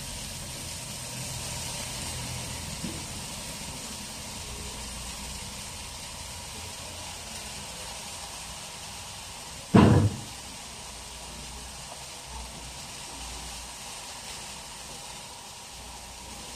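Chopped purslane and garlic sizzling steadily in a little oil in a pot, with one sharp, loud clunk about ten seconds in.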